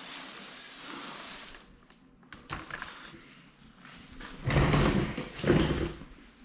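Hand-pump pressure sprayer hissing as it mists liquid onto car paint, stopping about a second and a half in. Near the end come two louder rustling bursts about a second apart.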